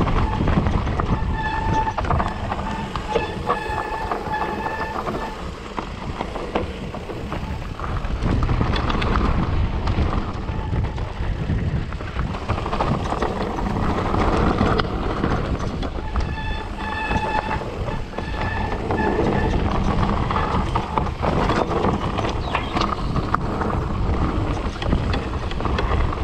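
Mountain bike riding down a rough trail: steady tyre and wind noise with the frame and parts rattling over bumps. A pitched whine comes in twice, for a few seconds each time, near the start and after about sixteen seconds.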